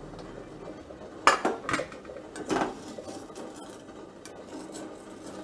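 Wire spider skimmer clinking and scraping against a metal kadhai and a steel plate as salt-roasted cashews are scooped out of hot salt. A few sharp clinks come between about one and three seconds in, with quieter scraping around them.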